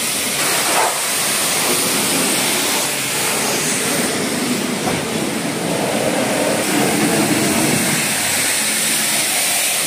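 Pressure washer running with a steady hiss and a rumbling machine note.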